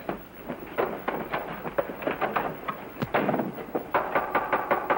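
Rapid, irregular knocks and clatters of boots, chairs and wooden furniture as several men scramble into seats around a table, busiest in the second half.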